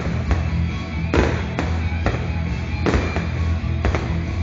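Loud music with a heavy, steady bass line, with fireworks bursting over it. There are several sharp bangs, the strongest a little over a second in and others near three and four seconds.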